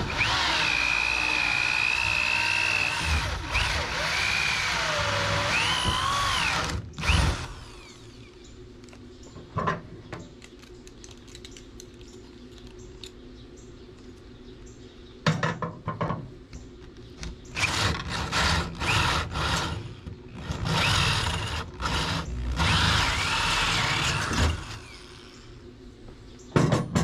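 Corded drill spinning a 1.5-inch hole saw down through a wood guide into a shelf board. The motor whine rises and falls as the bit cuts. It runs in two bouts, the first for about seven seconds and the second in short bursts from about halfway in, with a quieter pause between them.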